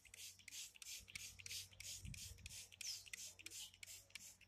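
Hand-pumped trigger spray bottle spritzing liquid onto a sopropo vine in quick repeated hissy squirts, about four a second. A single low bump of handling about two seconds in.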